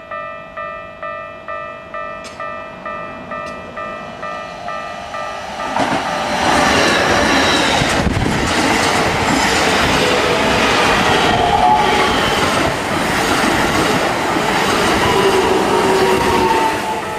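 Japanese level-crossing warning bell ringing a steady ding-ding about two and a half times a second. About six seconds in, a Keikyu 2100 series electric train passes loudly over the crossing for about eleven seconds and drowns out the bell. The bell is heard again as the train clears near the end.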